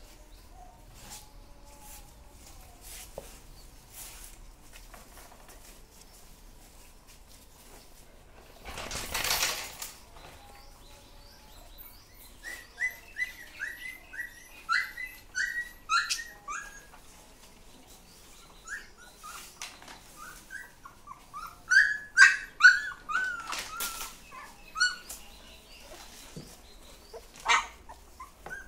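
Young puppies whimpering and yelping: strings of short, high-pitched cries, each falling in pitch, starting a little under halfway in and loudest about three-quarters of the way through. A second-long rush of noise comes about a third of the way in, before the cries.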